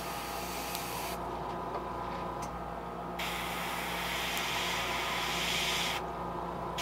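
Airbrush hissing as it sprays paint onto a fishing lure, in bursts: one for about the first second, a longer one of about three seconds starting about three seconds in, and another just starting at the end. A steady low hum sits underneath.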